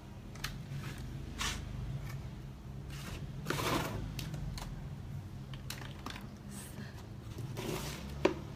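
Scattered light clicks and short rustles of small objects being handled, with a sharper click near the end.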